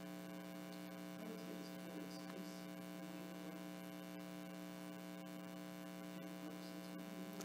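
Steady electrical mains hum with several tones stacked on one another, low in level, with faint indistinct sounds now and then.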